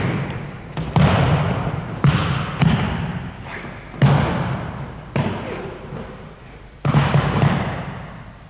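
Aikido throws and breakfalls: bodies landing on tatami mats with a slap and thud, about seven times at roughly one-second intervals. Each impact rings out in the echoing gym hall.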